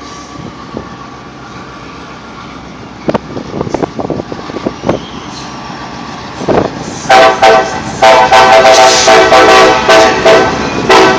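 Locomotive air horn on a CSX GP38, several tones sounding together as one chord, blown very loud in a run of short and longer blasts starting about seven seconds in.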